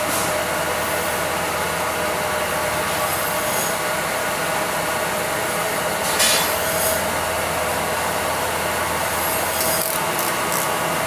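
Steady mechanical whirr with a constant tone from a running skin vacuum packing machine. There is a short hiss about six seconds in and a few brief clicks near the end.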